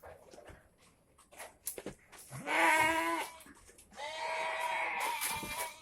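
Goats bleating: one bleat about two and a half seconds in, then a second, longer bleat from about four seconds that lasts well over a second.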